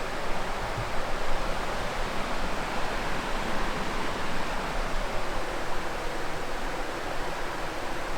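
Steady, even rushing noise with no breaks or separate events, the kind made by flowing water or wind.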